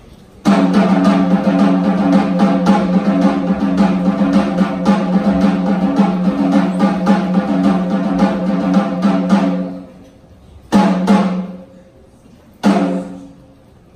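A loud, sustained drum roll of rapid strokes lasting about nine seconds, stopping short, then two separate single drum strikes that ring out briefly, about two seconds apart.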